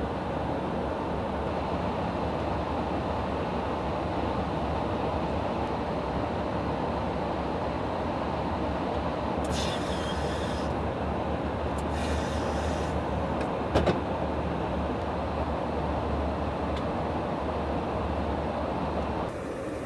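Steady in-flight drone and airflow rush inside a KC-135 Stratotanker during aerial refuelling, heard at the boom operator's station. Brief hissing comes twice, around the middle, and a single sharp knock sounds a little after.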